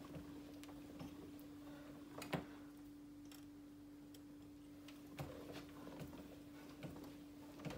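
Scattered faint metallic clicks and ticks from working a hand-cranked jewellery rolling mill while feeding gold wire through its rollers, the sharpest click about two and a half seconds in, over a steady low hum.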